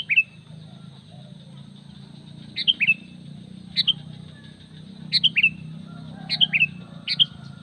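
Sooty-headed bulbul (kutilang) calling: about six short phrases of two or three quick, sharp notes, repeated every second or so. A steady low hum runs underneath.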